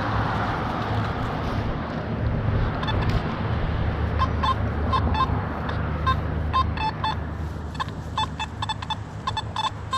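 Metal detector giving short, repeated beeps of one pitch as the coil sweeps back and forth over a buried target. They begin about three seconds in. Under them runs a steady low rumble of traffic.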